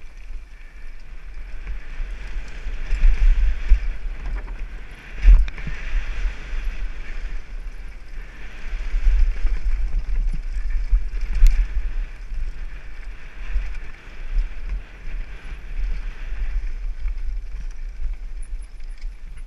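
Downhill mountain bike descending a rocky trail, heard from a helmet-mounted camera: uneven wind rumble on the microphone over the rattle and crunch of tyres and frame on loose stone, with a sharp knock about five seconds in and a lighter click near the middle.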